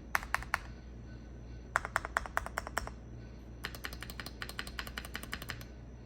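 Typing on a Cidoo V65 65% mechanical keyboard with lubed Gateron Milky Clear linear switches and a tape mod: quick runs of keystrokes with short pauses between them. A few strokes come at the start, a run of about ten follows near two seconds in, and a longer, faster run comes after the middle.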